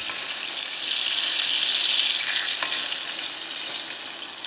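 Breaded chicken pieces deep-frying in hot oil: a steady sizzle that swells about a second in and eases near the end, with a light tap midway as the pieces are scooped out with a metal slotted spoon.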